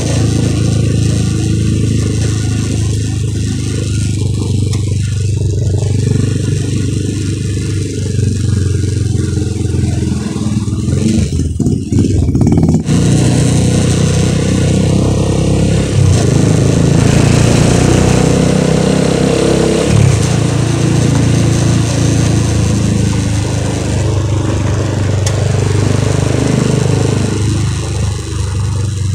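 Motorcycle engine running while riding through city traffic, its pitch shifting up and down with the throttle.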